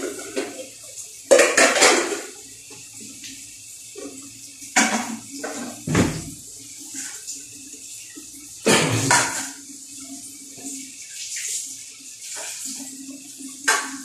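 Metal pots, dishes and utensils clattering and clinking in a kitchen sink as they are handled and washed. There are about five separate bursts of clatter over a steady hiss of running water.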